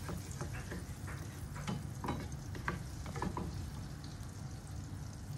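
Butter melting and sizzling in a coated frying pan on a low flame, with a wooden spatula scraping and tapping against the pan in short strokes over the first three and a half seconds.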